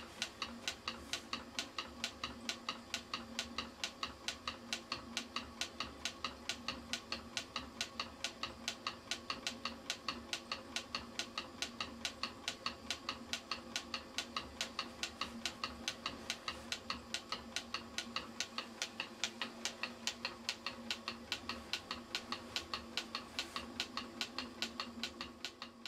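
Ringbom-type low-temperature-difference Stirling engine running steadily, with an even, rapid clicking, a few clicks a second, the knock of its free-moving displacer at each stroke.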